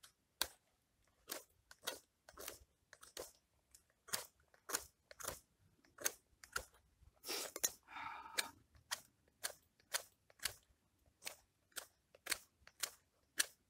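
A knife whittling a wooden stake by hand, short sharp shaving strokes about two a second, with one longer scrape about halfway through.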